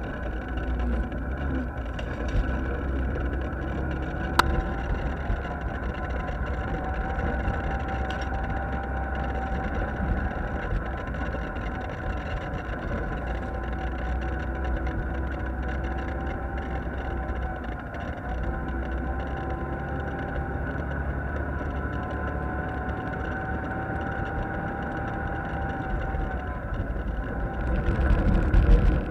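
Off-road side-by-side engine running under steady throttle on a dirt trail, a steady drone with a low rumble and slight rises and falls in pitch. A short click comes about four seconds in, and the sound turns rougher and gustier near the end.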